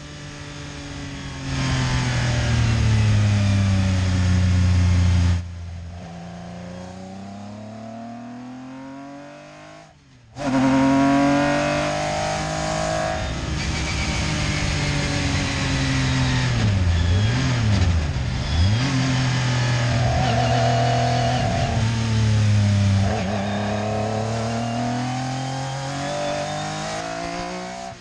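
Metro 6R4 Group B rally car's naturally aspirated V6 at full racing pace, revving up and falling back with each gear change and corner. It drops away suddenly about five seconds in, nearly fades out around ten seconds, then comes back loud, with a quick run of sharp pitch drops and climbs past the middle.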